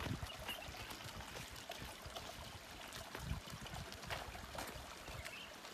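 Faint outdoor ambience: a steady hiss like trickling water, with scattered light steps of a person and a water buffalo on a gravel road and low gusts of wind on the microphone.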